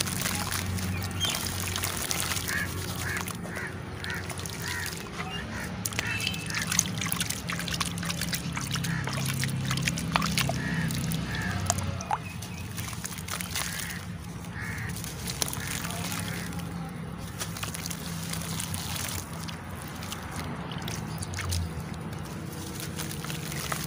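Hands squeezing and breaking soft charcoal lumps in a tub of water: sloshing and splashing with gritty crumbling. A run of short animal calls sounds in the background a few seconds in.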